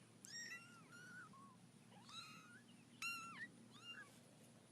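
A cat mewing faintly: about six short, high-pitched mews, each rising and falling, the loudest about three seconds in.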